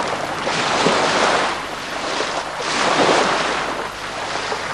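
Surf washing onto a sandy beach, the noise of the waves swelling and falling back about every two seconds.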